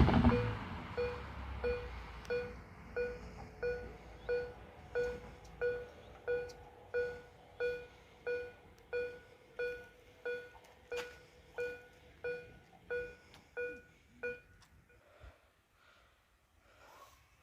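Railway level crossing warning bell ringing in an even series of strikes, about one and a half a second, that stops about fourteen seconds in. The noise of a passing train fades out at the start.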